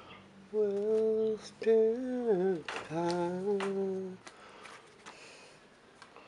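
A voice singing a slow song without clear words, in long held notes that bend and fall in pitch. The singing stops about four seconds in, leaving a few faint clicks.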